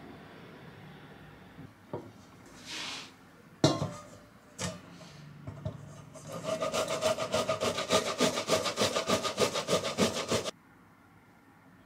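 A tomato rubbed against a stainless steel hand grater over a steel bowl: a fast, even run of rasping strokes for about four seconds that stops suddenly. Before it come a soft whoosh and two sharp knocks.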